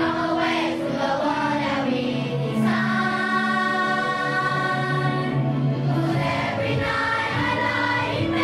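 Children's choir singing together, with instrumental accompaniment; one note is held for about a second and a half around three seconds in.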